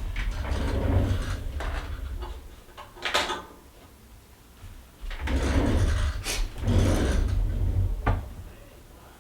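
Fabric and pins being handled and shifted at a sewing machine: two stretches of rustling with a low rumble, a sharp click about three seconds in and another near the end.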